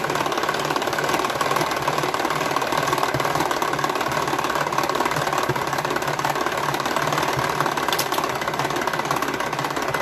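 Tupperware Whip 'N Mix hand-cranked mixer turned fast, its gears and beaters whirring steadily with a quick, even rattle as they whip eggs and sugar. The whirring stops suddenly at the end.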